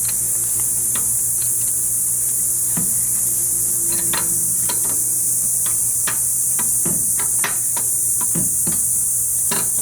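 Scattered metal clinks and knocks as a turbocharger is worked into its grooves and onto the manifold studs by hand, more frequent in the second half, over a steady high hiss.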